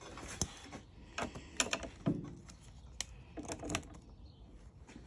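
Scattered faint clicks and knocks of hand handling, as a jump-starter booster is being hooked up to the motorcycle's flat battery, with a small cluster of clunks about three and a half seconds in.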